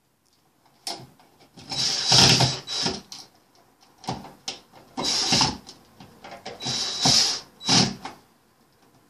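A small cordless screwdriver running in about six short spurts with a thin whine, as the outlet's mounting screws are driven into the electrical box.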